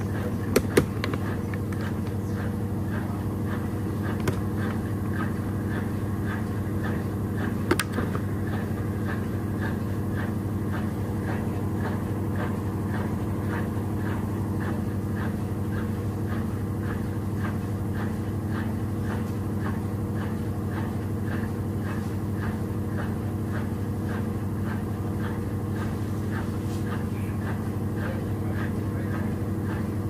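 Consul Maxi Economia 13 kg washing machine running with a steady motor hum and a light regular ticking a little faster than once a second. A few sharp knocks stand out in the first second and again about eight seconds in.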